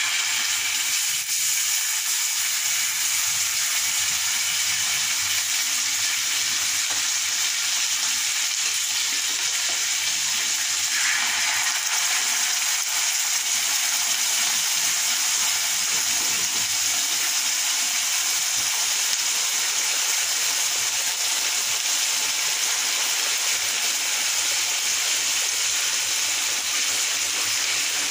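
Hot fat and red chilli sauce sizzling in a steel pan over a gas flame: a steady, even hiss.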